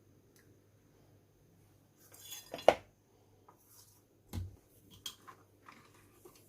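Kitchenware handled on a counter: a short rustle ending in a sharp clink about two and a half seconds in, a dull knock of something set down a couple of seconds later, then a few lighter clinks.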